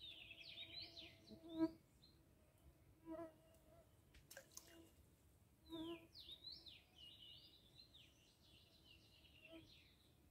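A songbird sings quick warbling phrases of rapid high sweeping notes, once at the start and again in the second half. A fly buzzes briefly on and off close to the microphone, loudest about a second and a half in.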